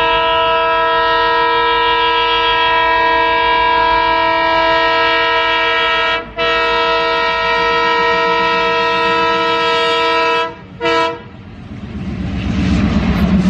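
Train horn sounding one long, steady blast, broken briefly about six seconds in, then a short toot near eleven seconds. After it a low train rumble builds up toward the end.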